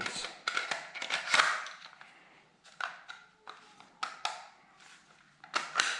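Clicks, scrapes and rattles of small plastic parts as AAA batteries are fitted into a micro RC car's transmitter, in several short clusters.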